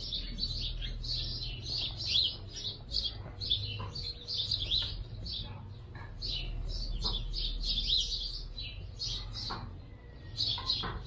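Small birds chirping: a busy, continuous chorus of short high chirps.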